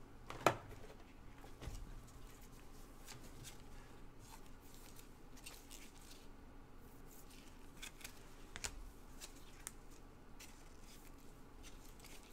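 Gloved hands handling foil-board trading cards: faint scattered clicks and rustles of cards sliding and flicking against each other, with one sharper click about half a second in.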